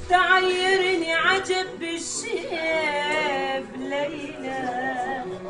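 A woman singing solo in Arabic style, loud, with ornamented held notes that waver in wide vibrato and bend up and down. The singing comes in suddenly at the beginning.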